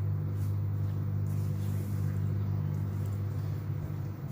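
A steady low machine hum, unchanging.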